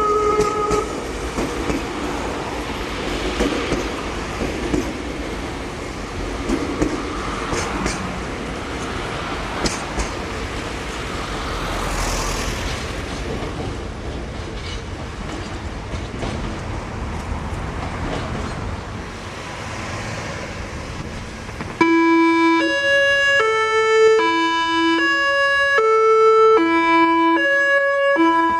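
A Meitetsu train's music horn finishes a note about a second in, followed by about twenty seconds of steady train and traffic noise. Near the end an abrupt cut brings in another Meitetsu music horn, playing its stepped multi-note melody.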